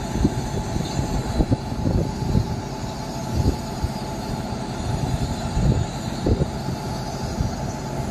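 WAG-7 electric locomotive standing with its machinery running: a steady low rumble and hum, broken by uneven low thumps throughout.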